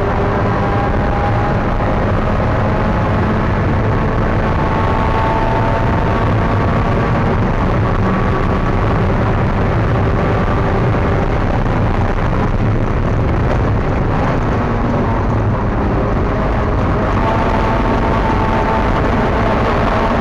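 Spec Miata race car's four-cylinder engine running hard at race speed, its pitch rising and shifting with the gears, over loud wind and road noise heard from inside the car.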